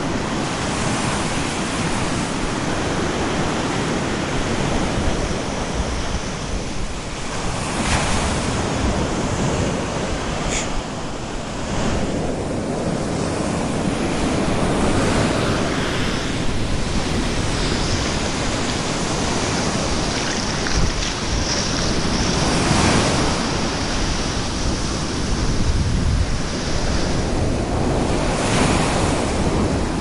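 Ocean waves breaking on a beach: continuous surf noise that swells into louder crashes several times, with wind on the microphone.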